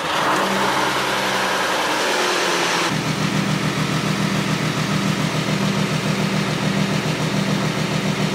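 Audi Q7 engine just started, running at raised revs that ease down a little, then idling steadily with an even pulse. About three seconds in, the sound turns suddenly lower and duller.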